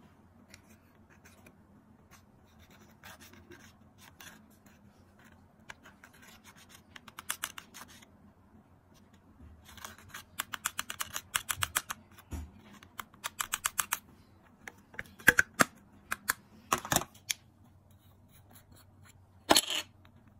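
Thin pin scratching pressed makeup powder out of palette pans, in quick runs of short strokes, with a few louder single scrapes in the later part.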